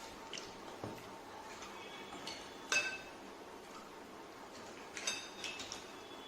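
Dishes and utensils clinking in a kitchen. There are a few light clinks, the loudest about three seconds in with a brief ring, then a quick cluster of clinks about five seconds in.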